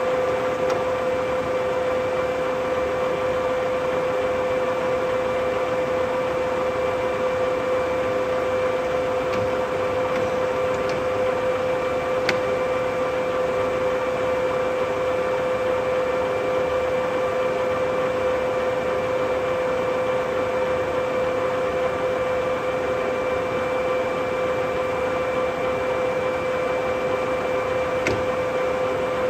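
Colchester Triumph 2000 geared-head centre lathe running under power with its chuck spinning: a steady mechanical hum with a constant pitched tone from the 7.5 hp motor and headstock. A light click is heard about halfway through and another near the end.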